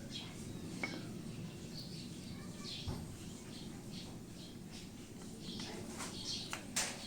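Small metal parts of a sewing machine motor being handled: a few light clicks over a low steady hum, with scattered faint high squeaks.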